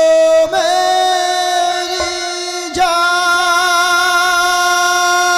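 Music: a singing voice holding long, drawn-out notes, with a fresh note starting about half a second in and again near the three-second mark.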